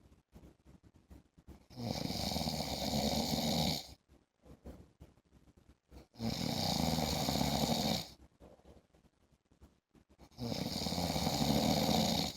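A man snoring in his sleep: three long, regular snores about four seconds apart, each lasting about two seconds.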